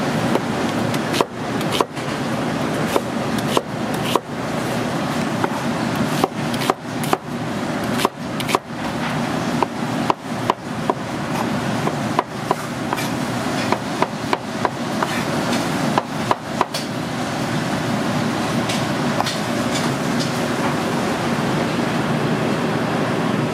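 Chef's knife chopping onion and mushrooms on a plastic cutting board: irregular knocks of the blade against the board over a steady background noise. The chopping stops about two-thirds of the way through.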